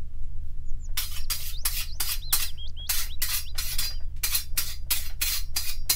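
A run of sharp clicks, about four a second, starting about a second in, with a few bird chirps over a steady low hum.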